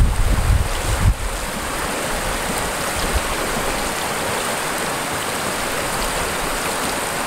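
Shallow river rapids rushing over rocks, a steady, even hiss of moving water. For about the first second a low rumble of wind on the microphone sits under it.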